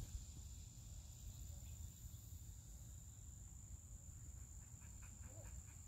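Faint, steady high-pitched insect chorus from the surrounding woods, over a low rumble.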